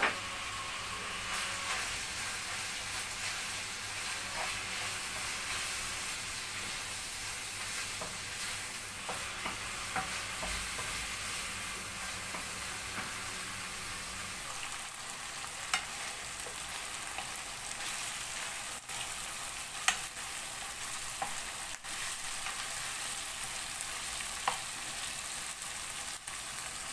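Beef liver strips with sliced green peppers and garlic sizzling steadily in oil in a frying pan, stirred with a wooden spoon, with a few sharp taps along the way.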